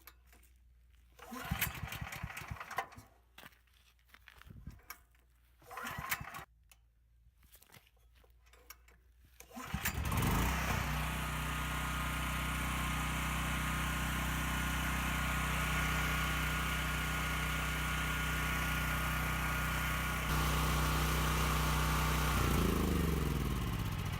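New portable generator being pull-started with the choke on: a few tugs on the recoil starter, then the small engine catches about ten seconds in and runs steadily. Near the end it is shut off and its pitch falls as it spins down.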